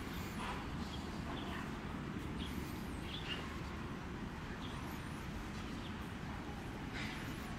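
Outdoor background noise: a steady low rumble with a few short, faint high chirps scattered through it.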